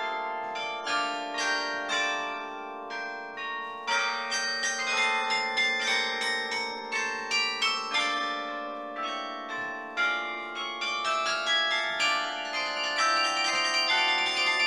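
Carillon being played from its baton keyboard: a quick stream of struck bell notes, several a second, over lower bells that keep ringing underneath.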